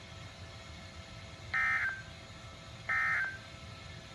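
Emergency Alert System end-of-message data tones: two short, identical bursts of the SAME digital squawk, about a second and a half apart, closing out a broadcast weather warning.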